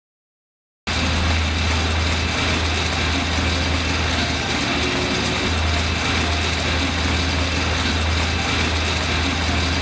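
Air bike's fan whirring steadily as the rider pedals and pushes and pulls the handles, starting about a second in.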